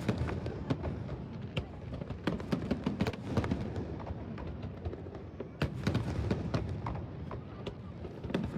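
Fireworks going off: irregular sharp bangs and pops, several a second, over a low rumble.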